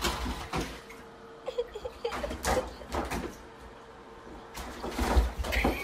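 Irregular knocks, thuds and scrapes of a cat scrambling and pouncing about in an empty bathtub, in several short flurries over a faint steady hum.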